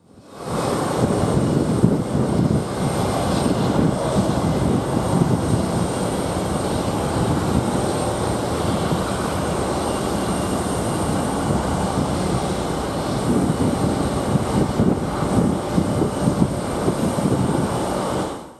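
Airbus A350's Rolls-Royce Trent XWB jet engines running at taxi power: a steady rumble with a faint high whine above it.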